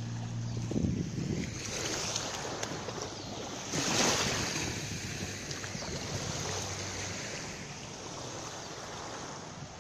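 Small waves washing up on a sandy beach, with wind rushing over the microphone and a louder surge about four seconds in. A faint low steady hum sounds underneath at the start and again later.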